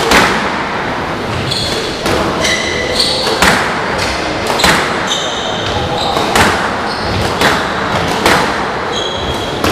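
Squash rally: the ball is struck by rackets and hits the court walls about once a second, each hit a sharp crack. Rubber-soled shoes squeak briefly on the wooden court floor between the shots.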